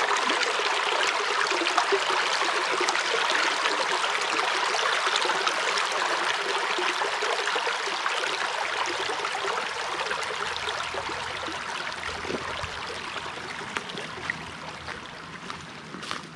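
Shallow rocky stream babbling over stones and fallen logs: a steady rush of water that gradually grows quieter in the second half.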